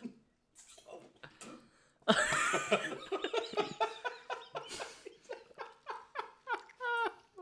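Laughter in a long run of short, pitched bursts, starting about two seconds in.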